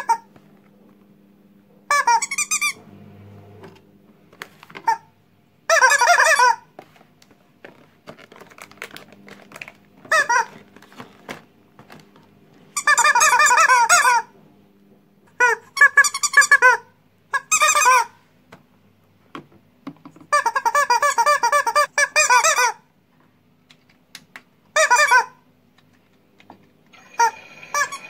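Rubber squeeze-toy birds, a rubber chicken among them, squeezed to give about ten squawking squeaks, some short and some held over a second, with pauses between. Near the end a steady whir starts up from the modified toy washing machine.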